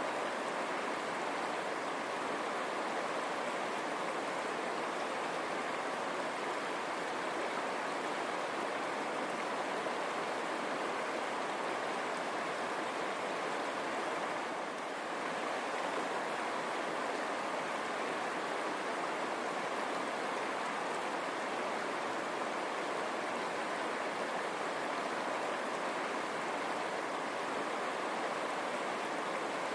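River water running steadily over rocks, a continuous rushing of flowing water.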